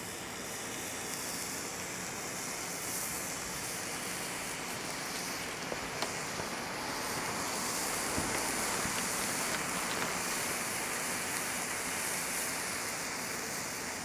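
Potassium permanganate and sugar mixture burning in a small metal pan: a steady hissing rush with a few scattered crackles, growing louder over the first few seconds as the fire builds.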